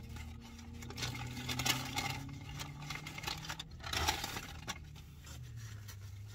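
Paper sandwich wrapper crinkling and rustling as it is handled, in short bursts with the loudest about one and a half seconds in and again around four seconds.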